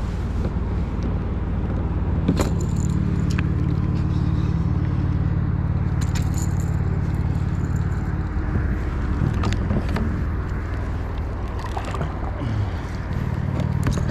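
Steady low hum of a motor vehicle's engine from the road, easing about eight seconds in and coming back near the end. Scattered clicks and scrapes of a spinning rod and reel being handled.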